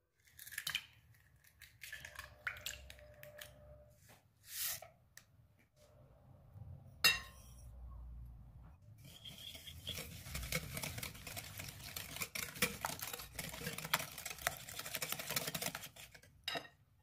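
Wire whisk beating eggs and sugar in a glass bowl: a fast, steady clatter of metal tines against the glass from about nine seconds in until shortly before the end. Before it come scattered clinks and taps, with one sharp knock about seven seconds in, the loudest moment.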